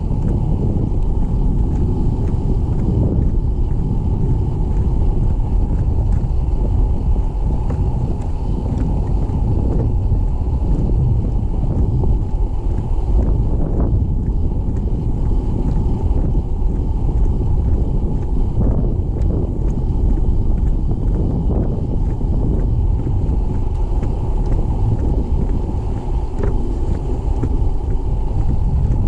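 Wind buffeting the camera's microphone: a steady low rumble with no break.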